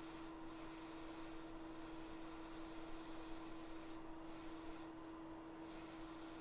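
Faint steady hum at a single pitch over a light hiss: workbench room tone.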